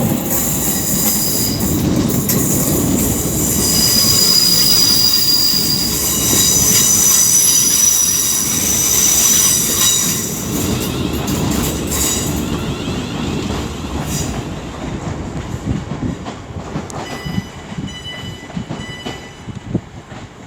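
Class 350 electric multiple unit moving through the station, its steel wheels squealing shrilly on the curved track over a running rumble. The squeal dies away about twelve seconds in and the rumble fades.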